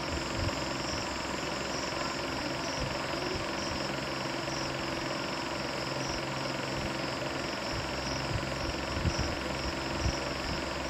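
Steady background hum and hiss with no speech, and a few faint soft knocks in the second half.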